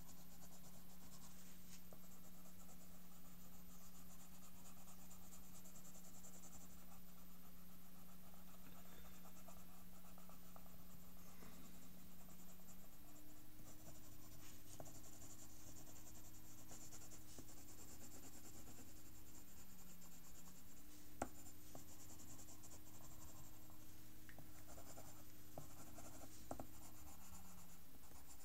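Pencil scratching on paper in repeated short shading strokes, under a steady low hum that shifts pitch about halfway through; one sharp tick about three-quarters of the way in.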